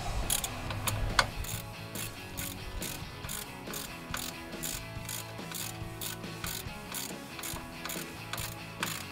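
Hand ratchet wrench being swung back and forth, its pawl clicking in an even rhythm of about two to three clicks a second.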